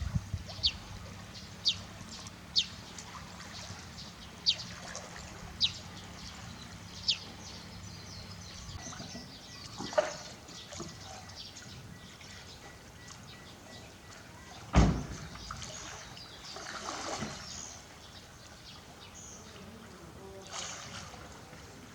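Water trickling and sloshing in a pool. A bird gives six short, high, falling chirps in the first seven seconds. One loud sharp knock comes about fifteen seconds in, with a smaller one a few seconds before it.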